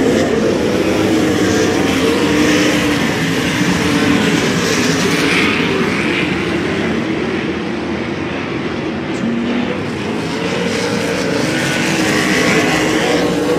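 Winged dirt-track sprint cars' V8 engines racing. The engines run loud and steady, with their pitch rising and falling as the cars lift off and get back on the throttle through the turns.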